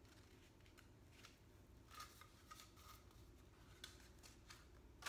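Faint crinkling and tearing of the paper wrapper being peeled off a crescent-roll dough can, in scattered small crackles, busiest about two seconds in.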